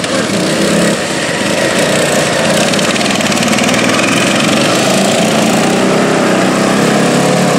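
Open-class racing riding lawn mower's engine running hard as the mower drives past close by, loud and steady.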